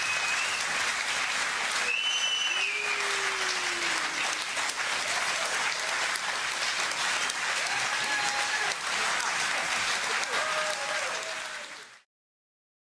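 Audience applauding, with a few voices calling out over the clapping. The applause fades and cuts off near the end.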